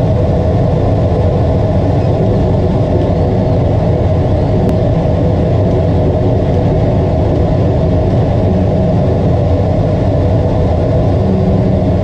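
CO2 laser cutter running while it cuts a part: a steady, loud mechanical hum with a low drone that does not change.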